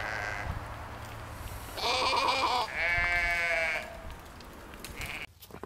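A goat bleating twice in quick succession, two calls just under a second each starting about two seconds in, from an animal with a plastic bucket stuck over its head.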